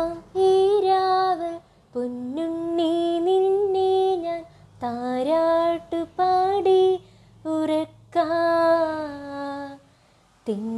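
A young woman singing a slow Malayalam Christmas lullaby solo, in long held phrases separated by short breaths, falling quiet briefly near the end.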